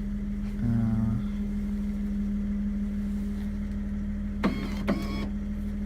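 BMW E53 X5 tailgate lock mechanism at work: a brief electric buzz from the lock actuator about half a second in, then two sharp clicks with a metallic ring near the end, over a steady low hum.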